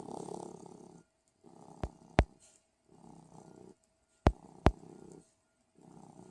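A sleeping pet snoring: about five rough, rasping breaths, one roughly every second and a half. Two quick pairs of sharp clicks come through louder than the snoring, about two seconds in and again just past four seconds.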